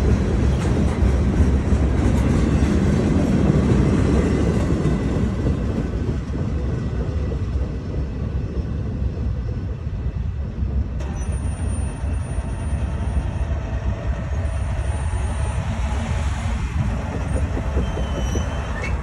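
Freight cars of a CSX manifest train rolling past, a steady rumble of wheels on rail that eases slightly after about six seconds.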